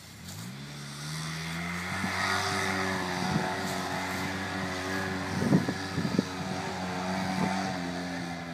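Polaris RZR side-by-side engine revving up and then holding high revs under load as it climbs a steep dirt hill. A few sharp knocks come about halfway through.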